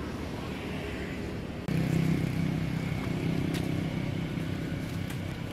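Steady low motor hum, stepping up suddenly in level about a second and a half in, with a few faint clicks.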